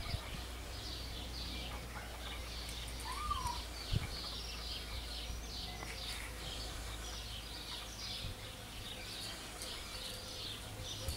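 Outdoor ambience of small birds chirping in quick, repeated high notes over a steady low rumble, with a single short rising-and-falling whistle about three seconds in and a soft thump about a second later.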